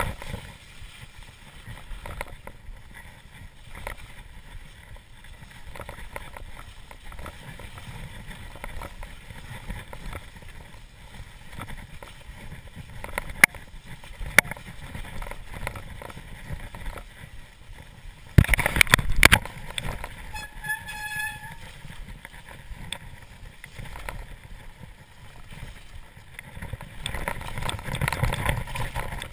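Mountain bike ridden down a muddy, slushy snow-covered trail: steady tyre and frame rattle with many small knocks over bumps. About two-thirds of the way in, a loud jolt is followed by a short high squeal, and the noise grows louder again near the end.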